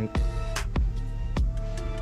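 Background music with a steady drum beat and sustained tones.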